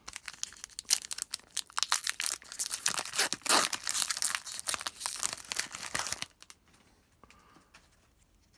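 A hockey card pack's wrapper being torn open and crinkled in the hands: a dense, crackling run of tearing and rustling that stops about six seconds in.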